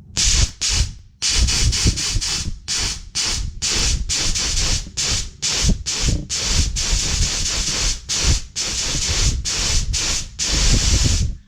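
Nitrous purge solenoid firing in a rapid series of loud hissing bursts, most short and some held longer, as the line is purged of gas.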